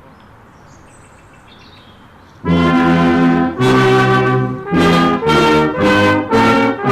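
Quiet outdoor background, then about two and a half seconds in a brass ensemble starts playing a slow tune in sustained chords, each chord held for about a second.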